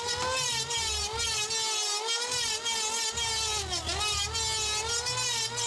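Electric hand planer running as it is pushed along a wooden beam: a steady high whine with the cutting noise of the blades on the wood. The pitch sags briefly about two-thirds of the way through.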